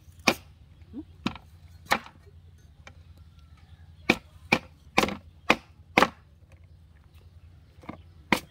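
A knife chopping sugarcane on a wooden board: sharp woody knocks, three spaced strokes, then a quick run of five about half a second apart, and one more near the end.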